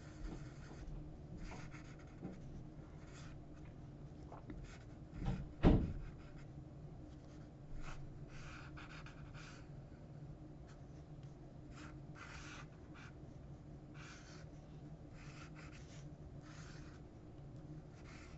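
A #2 HB graphite pencil scratching on paper in short, repeated strokes, over a faint steady low hum. A single dull thump, the loudest sound, comes about five and a half seconds in.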